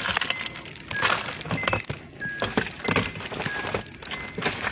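Handling noise close to a phone's microphone: rustling, rubbing and sharp clicks as items are moved about during a car search, with a few short high beeps.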